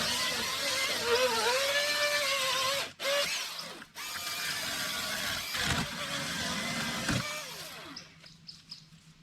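Milwaukee M18 Fuel battery-powered electric chainsaw running, its motor pitch dipping and rising. It cuts out briefly twice a few seconds in and dies away near the end, leaving faint bird chirps.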